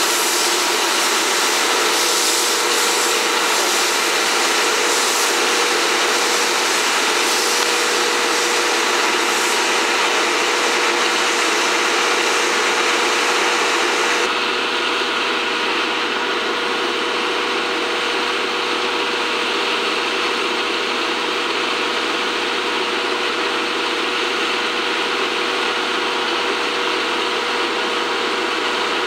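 D51 steam locomotive moving away slowly, with a steady loud hiss of steam and running noise under a steady hum. About halfway through, the high part of the hiss drops away abruptly.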